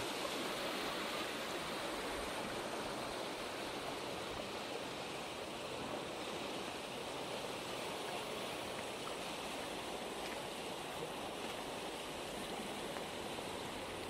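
Fast-flowing river churning through shallows around old bridge pilings: a steady rush of water.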